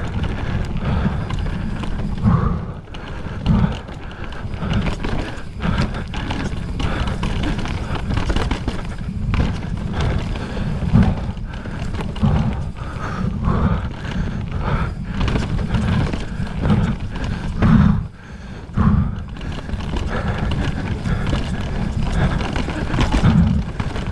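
Enduro mountain bike descending a rough downhill trail at race speed: a steady low rumble of tyres on dirt and rock, with frequent rattling knocks from the bike's frame, drivetrain and suspension. The rumble drops briefly about 3 and 18 seconds in.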